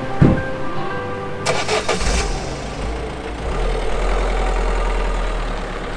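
A thump near the start, then a Peugeot van's engine is cranked by the starter and catches about a second and a half in, settling into a steady low idle.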